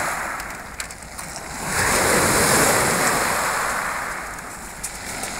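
Black Sea surf on a pebble beach: a wave swells about two seconds in and washes up the stones, then ebbs away.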